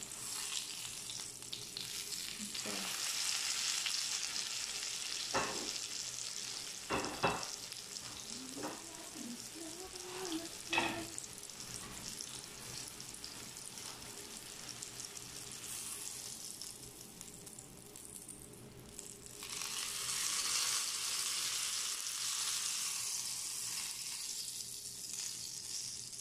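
Eggplant omelette shallow-frying in oil in a nonstick pan: a steady sizzle that fades for a few seconds past the middle and comes back strongly. A few sharp knocks between about five and eleven seconds in.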